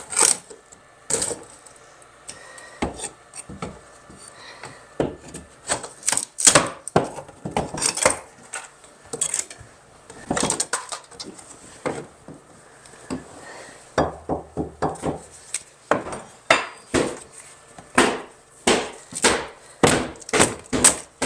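Irregular sharp knocks and cracks of material being struck and broken apart during demolition work, sometimes several a second, with short pauses between runs.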